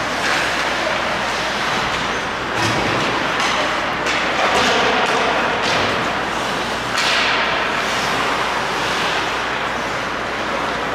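Ice hockey play in an indoor rink: skate blades scraping on the ice and several sharp knocks of sticks and puck, over a steady haze of arena noise.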